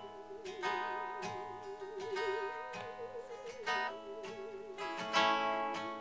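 A musical saw playing a slow melody with a wide, steady vibrato, over strummed acoustic guitar chords.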